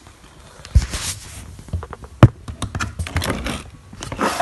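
Hands handling a laptop while its lid is opened: scattered knocks and clicks with some rustling, the sharpest knock about two seconds in.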